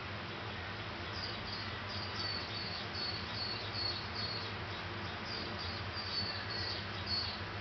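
Miniature dachshund pawing and digging at a fleece blanket on a bed: a run of short scratching strokes, about two or three a second, starting about a second in and pausing briefly a little past the middle, over a steady hiss.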